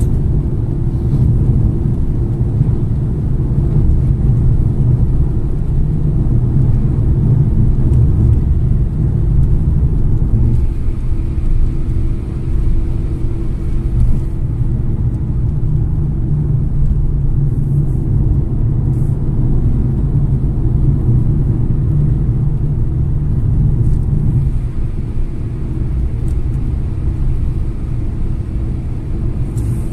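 Steady low rumble of a car driving on a highway: engine and tyre noise heard from the moving car.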